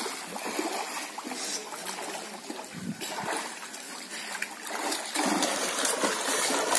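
Pool water splashing as several swimmers thrash and paddle through it, growing louder about five seconds in.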